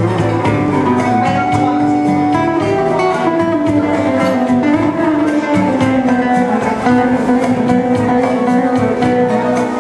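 Nylon-string classical guitar played live, a steady rhythm of plucked notes and chords.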